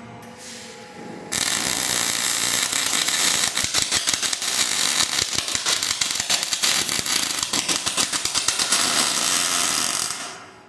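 Robotic gas-shielded wire-feed (MIG/MAG) welding arc on a steel truss: after a brief hiss, the arc strikes about a second in and crackles loudly and steadily with dense spatter clicks, stopping shortly before the end.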